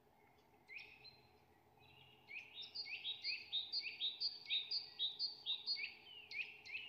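A run of short, high chirping calls, about three a second, starting about two seconds in after one faint call near the start.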